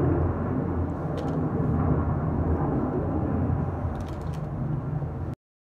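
Jet aircraft flying over: a steady low rumble that cuts off suddenly near the end.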